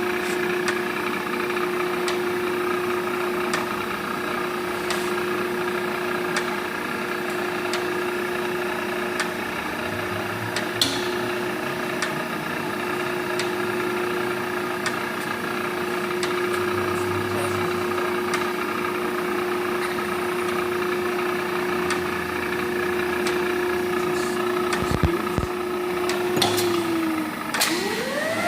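Thompson 6 x 18 Model B surface grinder running, a steady motor hum with a few light clicks. Near the end the hum dips and a rising whine begins.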